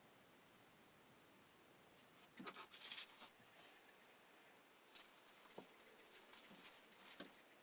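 Faint clicks and a short scraping rustle about two and a half seconds in, then a few scattered light clicks, over near silence.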